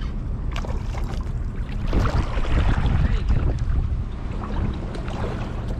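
Steady low rumble of wind and water on the microphone. Faint voices come in about two seconds in.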